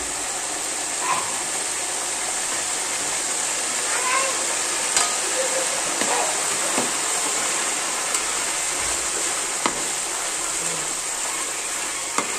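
Banana chips deep-frying in a large aluminium pan of hot oil, a steady sizzle as salt water is added, with a slotted spoon stirring and clinking against the pan several times.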